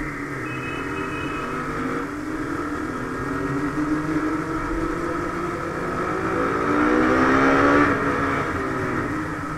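Motorcycle engine running under way, its pitch climbing as it accelerates and loudest about seven to eight seconds in, then dropping back as the throttle eases.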